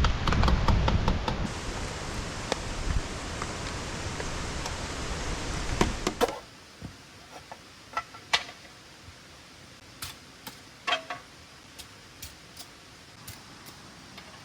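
Steady noise of heavy rain that cuts off suddenly about six seconds in, leaving a quiet background with scattered light knocks and clicks.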